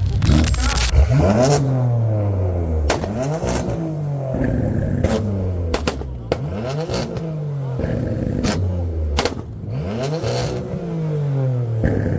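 Sports-car engine revved hard several times at a standstill, its pitch climbing then falling each time, with sharp exhaust pops and crackles.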